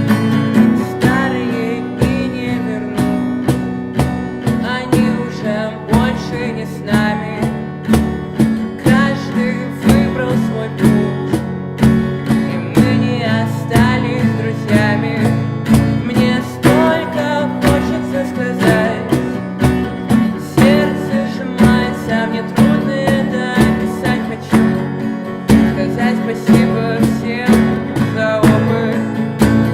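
Acoustic guitar strummed in a steady, even rhythm, playing an instrumental passage.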